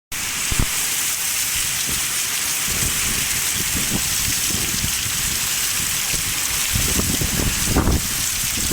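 Heavy downpour: a steady, dense hiss of rain pouring down, with low gusts of wind buffeting the microphone now and then, strongest a little before the end.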